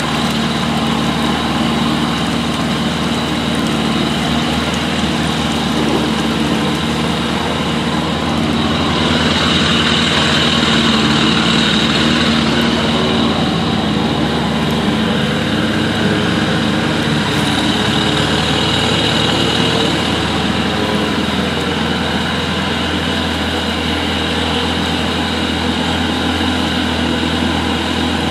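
A vehicle engine running steadily under way, getting a little louder for a few seconds about ten seconds in.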